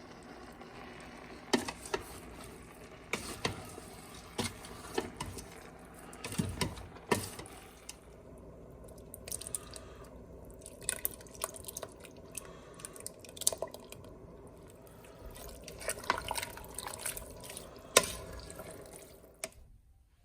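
Water running and splashing, with irregular sharp knocks and clinks over it; the sound cuts off suddenly just before the end.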